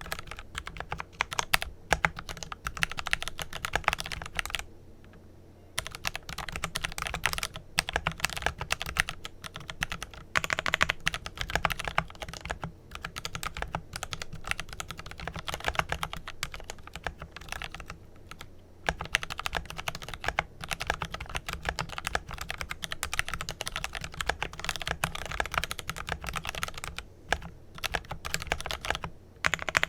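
Fast, continuous typing on a Glorious GMMK Pro mechanical keyboard with lubed Kailh Pro Purple tactile switches and PBT keycaps. The dense run of keystrokes breaks off for about a second around five seconds in.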